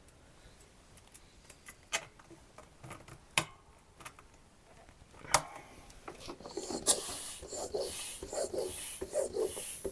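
A few sharp clicks, then from about six seconds in a bicycle pump inflating the tyre: repeated strokes with rushing, hissing air.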